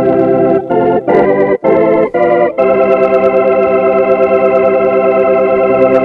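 Sampled Hammond organ from the Optigan library in IK Multimedia's Sampletron sampler, played on a keyboard: several short chords in quick succession, then one chord held from about two and a half seconds in. It is a real recording of a real Hammond.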